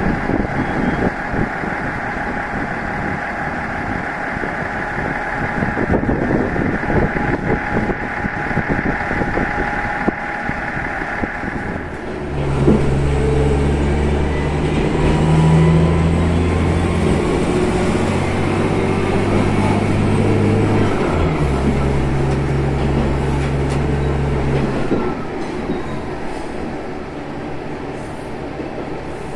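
Tenryu Hamanako Railway diesel railcar, first running at the platform, then heard from inside the cabin as its diesel engine pulls under power. The engine note shifts pitch once at a gear change about three-quarters of the way through, then throttles back near the end as the car coasts on the rails.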